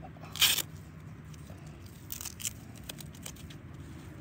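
Tourniquet being unpacked and handled: one short tearing rip about half a second in, then a few faint scrapes and clicks as the strap is worked.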